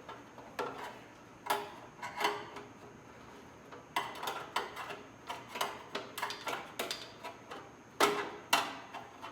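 Plastic wire-retaining clips on a motorcycle's rear fender being pried and worked loose by hand, giving a string of sharp, irregular clicks. The clicks are sparse at first, come thick and fast in the middle, and the two loudest fall near the end.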